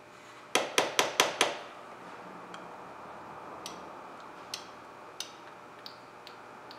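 Five quick, sharp metallic clicks about a second in, followed by a few scattered lighter ticks, as hands work the power probe's clip at the car battery's terminal.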